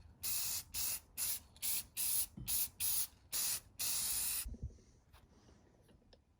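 Spray hissing from a nozzle in about nine short bursts, roughly two a second. The last and longest burst ends about four and a half seconds in, followed by a couple of faint clicks.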